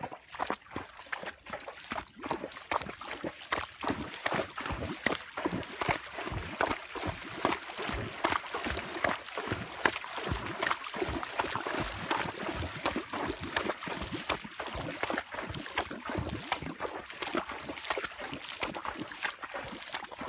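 An American Quarter Horse's hooves splashing and sloshing through shallow floodwater, a continuous run of splashes with each stride that thins out near the end as the horse reaches muddier ground.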